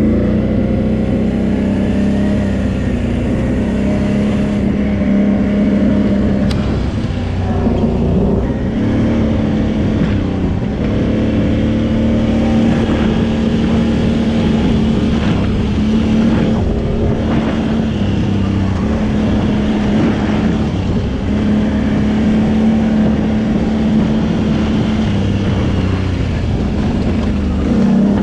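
Can-Am Renegade 800 ATV's V-twin engine running under way, its pitch stepping up and dipping several times as the throttle is opened and eased off.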